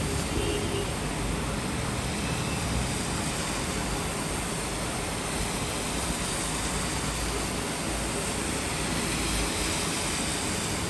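Steady, even rain falling, with a low rumble running underneath.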